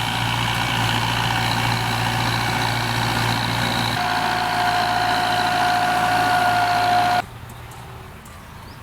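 Kubota M9540 tractor's diesel engine running steadily with a whine over it. The sound drops off sharply to a much quieter level about seven seconds in.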